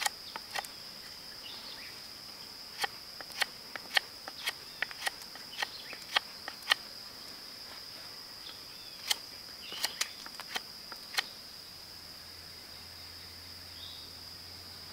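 Fixed-blade knife shaving and cutting a green wooden stick: about fifteen sharp cuts at uneven intervals, stopping about eleven seconds in. A steady high insect buzz runs behind.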